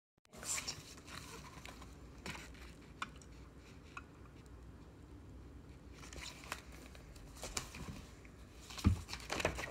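Paper pages of a picture book rustling and crinkling as it is handled and held open, with scattered small clicks and a soft knock near the end as it is lowered.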